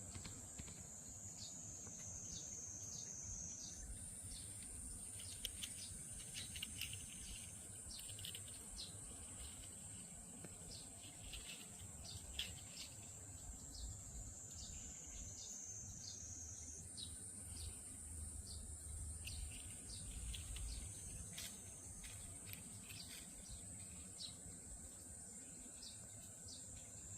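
Cicadas droning in a steady, faint, high-pitched buzz that steps up in pitch about four seconds in, sinks slightly around fifteen seconds, and steps up again at about seventeen seconds. Many short chirps sound over the drone throughout.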